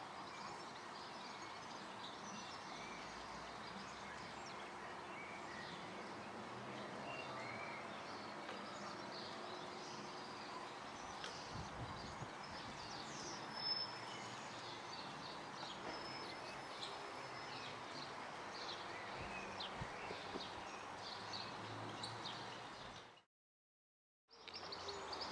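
Faint outdoor birdsong: many short, high chirps from several small birds over a steady background hiss. The sound cuts out to silence near the end, then another outdoor recording starts.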